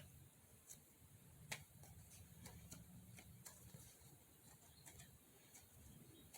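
Near silence with faint, irregular clicks and light taps of hands handling a squishy toy, about a dozen scattered ticks.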